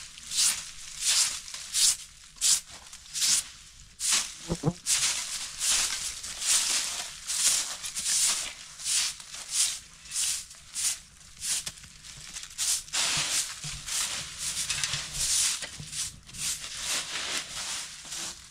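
Broom sweeping dry fallen leaves: repeated swishing strokes, about two a second, with the crackle of the dry leaves being pushed and gathered.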